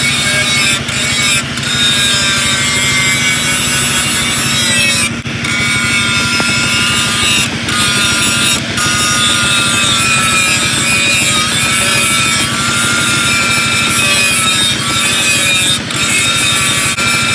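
Angle grinder with an abrasive disc grinding the steel of a knife blade cut from a tractor disc: a steady high motor whine over a rasp of grit on metal, wavering a little in pitch, with a few brief dips in level.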